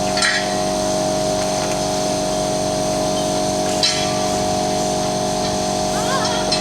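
Steady mechanical hum from workshop machinery, broken three times by a short hiss.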